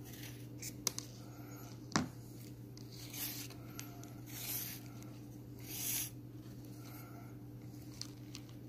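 Half-round leather lacing drawn through the punched holes of a leather keychain by hand. It gives three soft rasps in the middle, with a couple of light clicks earlier, over a steady low hum.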